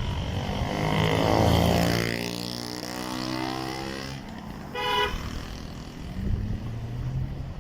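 Road traffic: a vehicle's engine drones past close by and fades, then a short car horn toot comes about five seconds in, followed by another engine passing.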